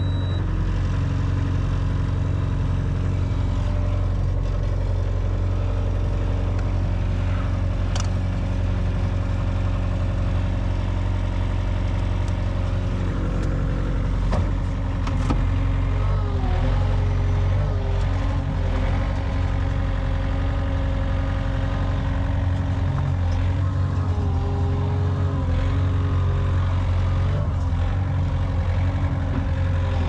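Engine of an earthmoving machine running steadily after starting, with a few short sharp knocks, one about 8 seconds in and two around the middle.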